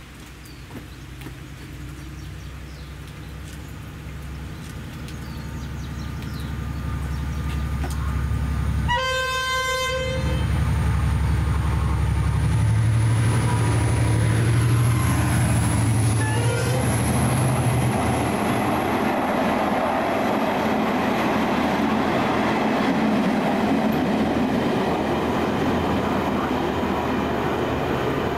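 Irish Rail 071 class diesel locomotive, with its EMD two-stroke V12 engine, approaching and passing, its engine drone growing louder. It gives one short horn blast about nine seconds in. The Cravens coaches then roll past with steady wheel-on-rail noise.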